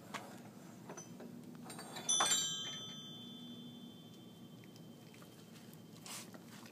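A single metallic chime about two seconds in: a sudden strike that rings on in several clear high tones and fades over a couple of seconds. A short soft noise comes near the end.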